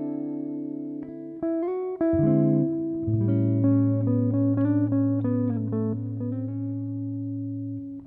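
Background music: a plucked-string melody over a low bass note held from about three seconds in until near the end.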